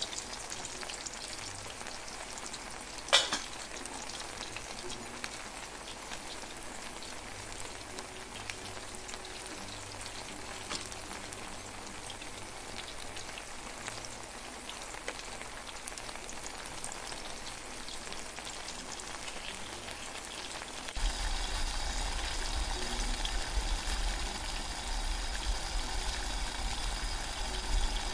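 Mutton masala sizzling and simmering in a steel pot, with one sharp metal clank of a utensil about three seconds in. About 21 seconds in it gives way to a louder, lower rumble of water heating toward a boil in a steel pot.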